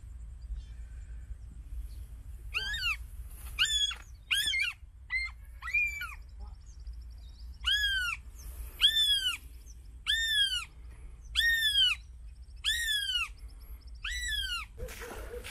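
A bird calling repeatedly: about eleven arched calls, each rising then falling in pitch, roughly one a second. The first few are short and quick, the later ones longer and evenly spaced. A rustle of handling comes near the end.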